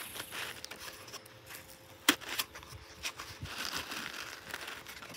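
Cardboard model siren rotor being spun by hand, giving a dry rustling and scraping of cardboard with one sharp knock about two seconds in. No siren tone.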